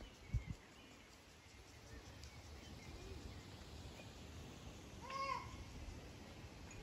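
Faint outdoor ambience with small scattered bird chirps; about five seconds in, one short animal call whose pitch rises and then falls.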